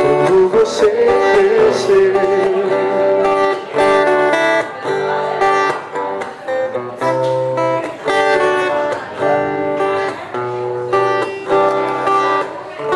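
Acoustic guitar picking an instrumental passage, after a sung note that ends about two seconds in.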